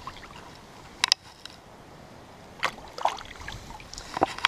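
A few short splashes and sloshes of water as a released bass is let go and swims off, over a steady rush of creek water.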